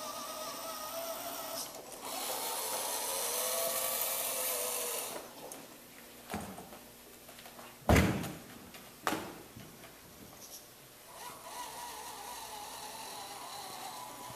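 Small electric gear motors of a student-built robot vehicle whining as it drives and turns, the pitch wavering, louder for a few seconds near the start. In the quieter middle come a few sharp knocks, the loudest about 8 seconds in, before the motor whine picks up again near the end.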